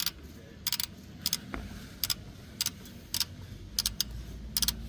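Ratchet wrench worked back and forth in short strokes, giving a quick burst of metallic clicks about every half second.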